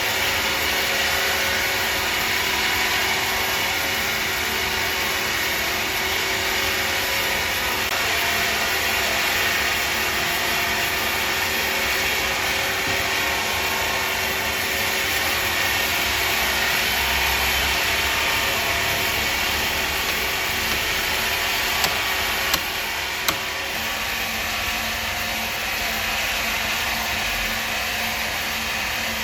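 Large log-sawing machine running steadily, with a couple of sharp knocks a little after twenty seconds in.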